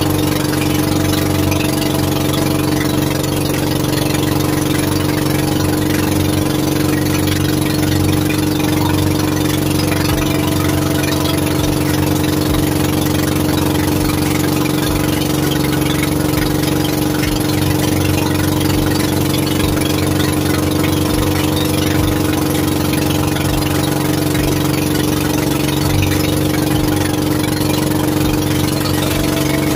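Motor of a small fishing boat running at a steady speed: a loud, even drone that holds one pitch throughout.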